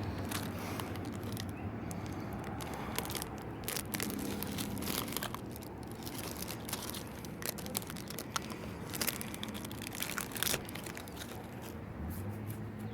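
Scattered small clicks, taps and crinkling from adhesive tape and small parts being handled during a tablet screen repair.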